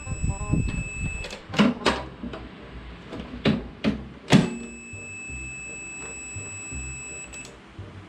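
Multimeter on its continuity setting beeping a steady high tone, briefly at the start and again for about three seconds from just before the middle, the sign of an unbroken circuit across the microwave door switch under test. Several sharp clicks come in between, and the beep stops and restarts on a click.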